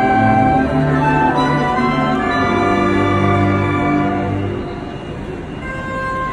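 Military wind band of clarinets and brass playing held notes and chords, growing softer about four and a half seconds in.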